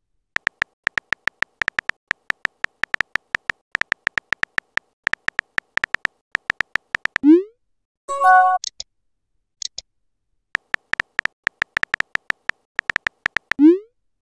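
Texting-app sound effects: rapid keyboard-tap clicks for several seconds, a short rising pop as the message is sent about seven seconds in, then a bright chime. Another run of tapping follows, ending in a second rising pop near the end.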